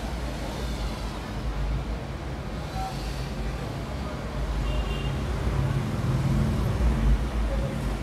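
Steady low rumble of background road traffic, growing a little louder about six to seven seconds in.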